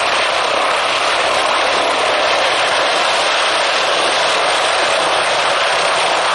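Airbus H145 D3 helicopter hovering low: its twin Safran Arriel 2E turboshaft engines and five-bladed main rotor make a loud, steady rushing noise that holds at one level.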